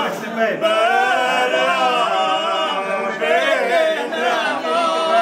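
Men singing an unaccompanied Albanian traditional song in held, wavering vocal lines, with no instruments.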